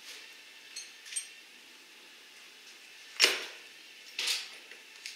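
Light metallic clinks from a lifting sling's shackle and hardware being handled, with one sharp clank about three seconds in and a brief rustle after it.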